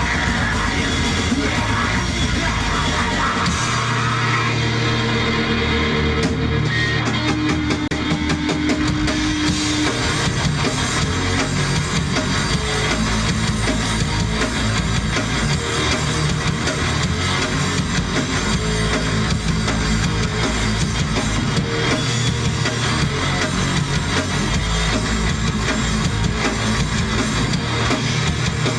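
Live rock band playing loud, continuous heavy rock on electric guitar and drum kit.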